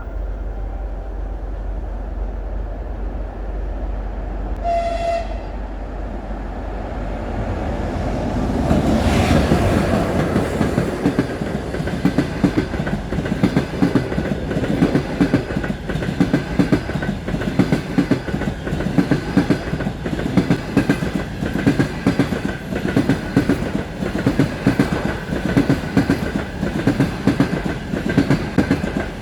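A short blast of a train horn, then a passenger train passing close at speed: a rising rush as the train arrives, followed by the quick, steady clickety-clack of its wheels over the rail joints.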